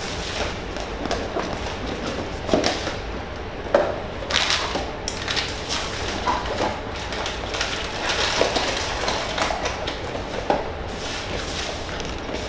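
Blind boxes being opened and small vinyl figures handled: irregular rustling of cardboard and packaging, with scattered knocks and clicks.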